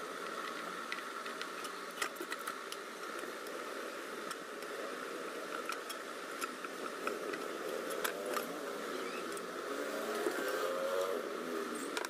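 Scattered metallic clicks and clinks of a hand tool against the springs and pump block of an opened refrigerator compressor as the spring mounts are adjusted, over a steady background hum.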